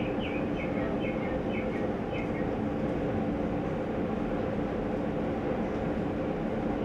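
LA Metro light-rail train standing at a station, humming steadily with a few low steady tones. A string of short high chirps runs through the first two seconds or so.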